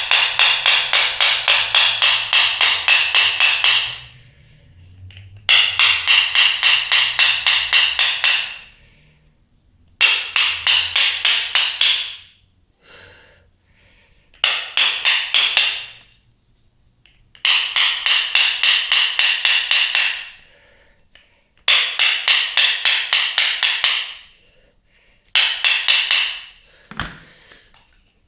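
Metal hammer blows struck in quick runs of about four to five a second, in bursts of two to four seconds with short pauses, knocking at a stuck part of a peripheral water pump to loosen it. The part is seized fast and does not come free.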